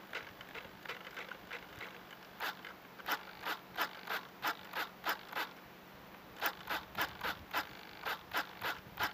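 A run of short, sharp, scratchy clicks, about three a second, with a brief pause about six seconds in before they resume.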